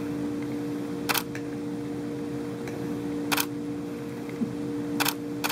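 Four short, sharp clicks spaced a second or two apart over a steady low room hum.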